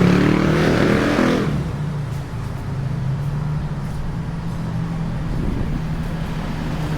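Street traffic: a motor vehicle engine running close by, louder for the first second and a half, then a steady low hum.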